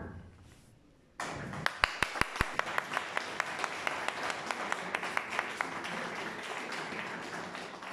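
Audience applauding. It starts suddenly about a second in and keeps up steadily, with a few loud, close claps near the start.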